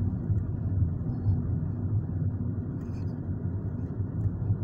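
Steady low rumble of a car's engine and tyres on the road, heard from inside the cabin as it drives along.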